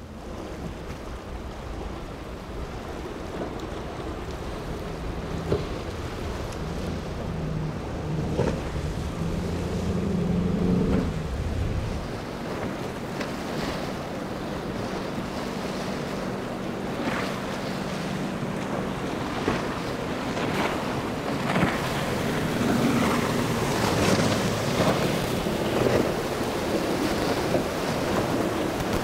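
Outboard-powered motorboats running through choppy water: a steady engine drone for about the first twelve seconds, then rushing spray and waves splashing against the hulls, with wind buffeting the microphone.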